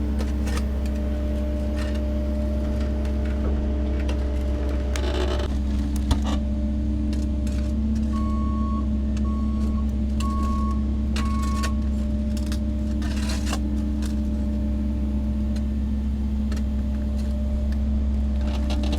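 Diesel engine of heavy job-site equipment running steadily at a constant speed, with occasional knocks, one sharp knock about six seconds in, and four short beeps at one pitch about halfway through.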